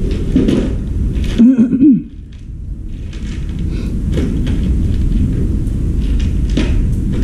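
Knocks and handling noise from a front-loading washing machine's plastic tub and metal frame being worked on by hand, over a steady low rumble. A brief, loud wavering tone comes about a second and a half in.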